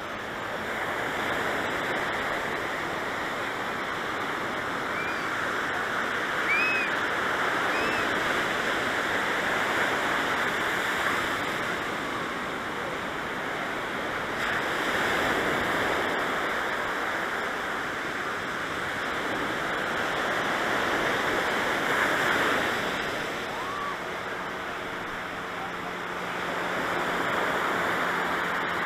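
Pacific Ocean surf washing onto the beach: a steady rush of noise that swells and eases every few seconds, with a few faint high chirps about six to eight seconds in.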